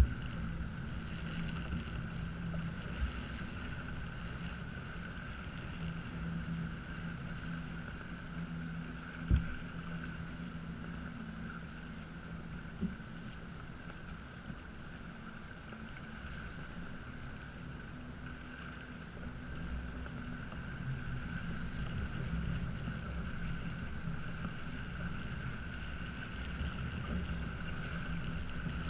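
Sailboat under sail in a fresh breeze: wind buffeting the camera microphone over the rush of water along the hull. A few short knocks come through it, the loudest about nine seconds in.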